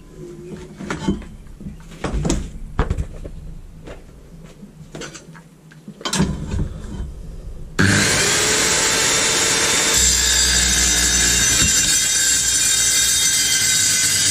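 A few knocks and clatter as the metal box section is handled, then about eight seconds in the Evolution 165 mm TCT multi-material circular saw starts cutting through it. The cutting is a loud, steady noise with ringing metallic tones running through it.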